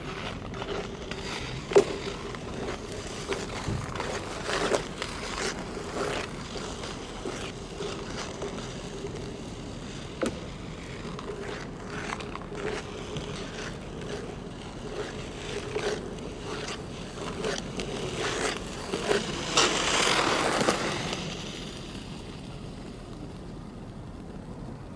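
Skate blades on hard natural black ice: repeated sharp cuts and clicks of the blades over a steady low tone, with a longer, louder scrape of the blades about twenty seconds in, after which it goes quieter.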